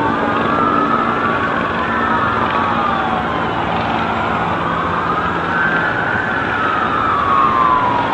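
Several emergency-vehicle sirens wailing at once, their pitches slowly rising and falling and crossing each other, over steady background noise.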